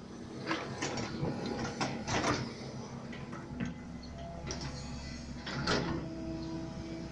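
Mini excavator at work: a steady motor hum with several short scraping, clattering bursts from the digging gear.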